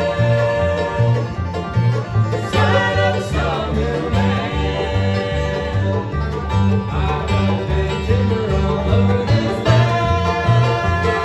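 Bluegrass band playing: banjo and guitar over a bass line that alternates between low notes in a steady beat, with held and sliding melody notes above.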